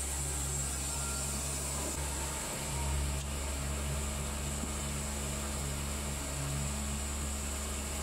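Baker 3665D band sawmill running steadily, a constant low machine hum with a high hiss over it.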